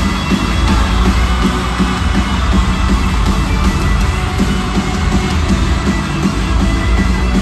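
A rock band playing live through an arena sound system, heard from within the crowd: loud, full-band rock with a steady driving drum beat.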